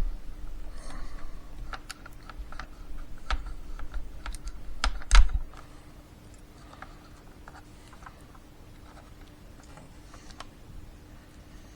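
Light clicks and taps of small parts being handled, with a louder knock about five seconds in and only sparse faint ticks after that. A faint steady hum runs underneath.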